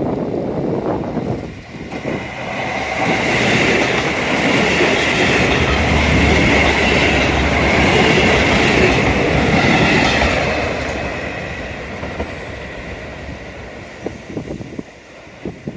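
A JR Kyushu train passing close by: it builds up about two seconds in, is loudest through the middle with a high steady whine over a low rumble, and fades away over the last few seconds.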